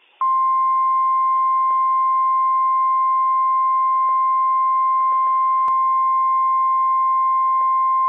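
NOAA Weather Radio 1050 Hz Warning Alarm Tone: one steady, piercing tone that comes on just after the start and holds, over faint radio hiss. It signals that a warning message is about to be broadcast.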